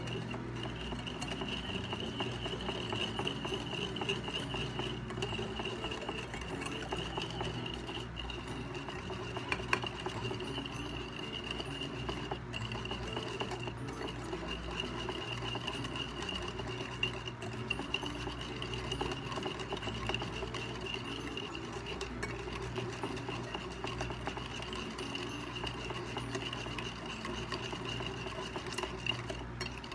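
A wire whisk beating instant coffee, sugar and hot water by hand in a ceramic plate, whisking steadily without a pause. The mixture is still dark and thin, early in beating it toward a Dalgona foam.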